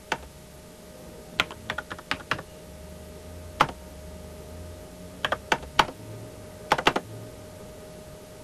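Keys being pressed on a computer keyboard in short, irregular runs of clicks with pauses between them, over a faint steady tone.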